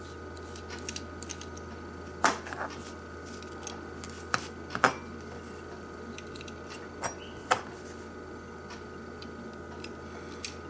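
Metal tweezers clicking and tapping against a plastic model locomotive at its coupler, and being handled: about seven sharp, irregular clicks over a steady low hum.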